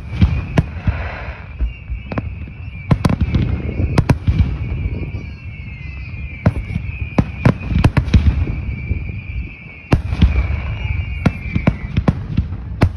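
Aerial fireworks shells bursting one after another: many sharp bangs with a low rumble between them. A steady high-pitched whine runs beneath the bangs and stops about eleven and a half seconds in.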